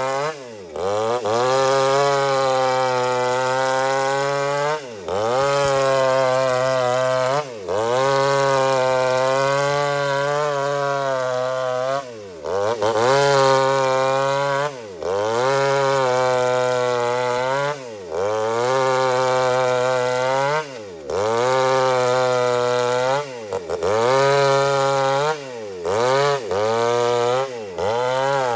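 Chainsaw running at high revs, ripping lengthwise through an old teak log. Its engine note briefly drops and climbs back every two to four seconds.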